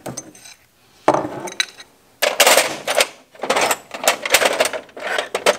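Metal wrenches clinking and rattling in the drawer of a steel Gearwrench tool chest as the drawer is handled and pushed shut, in several short clattering bursts.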